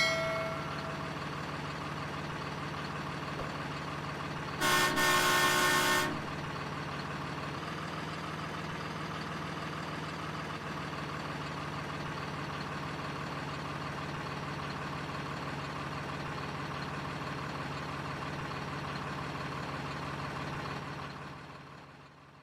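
RC truck sound unit playing a steady diesel engine idle, with a horn blast lasting about a second and a half about five seconds in. The engine sound fades out near the end.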